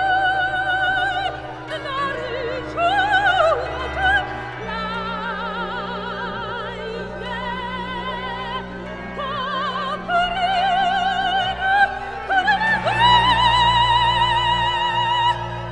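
Soprano singing a lament with wide vibrato over a chamber orchestra's swirling flurry of arpeggios in flutes, clarinets and strings, with sustained low notes beneath. The ensemble swells louder near the end.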